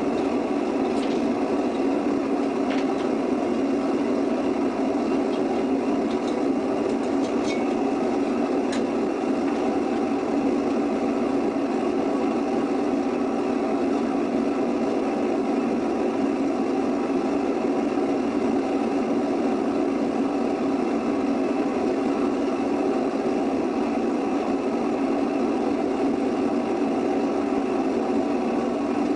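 Small homemade foundry furnace running at melting heat with aluminum strips in its crucible: a steady, unbroken drone. A few faint ticks come through in the first third.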